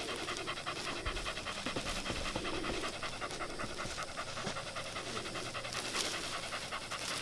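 Rapid, steady panting, several breaths a second.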